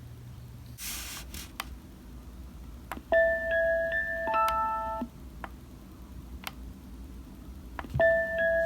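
Unite Stone white noise machine playing a music setting through its small speaker: a short chime tune of bell-like notes lasting about two seconds, starting about three seconds in and starting again near the end. A brief hiss about a second in and a few sharp clicks come between.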